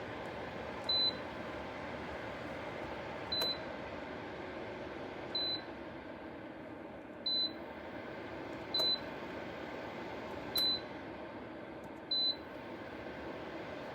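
Short, high electronic beeps, seven of them spaced unevenly about every two seconds, like button presses on a Dreo ceramic space heater's control panel, over the steady running noise of its fan.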